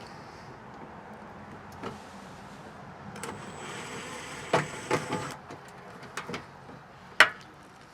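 Tool work on a metal RV furnace: scattered clicks and knocks, with a short electric-motor whir, like a cordless driver, about three to five seconds in.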